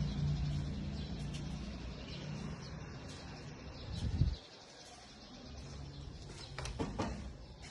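An engine running with a steady low hum that swells briefly and then cuts off about four seconds in. Birds chirp faintly over it.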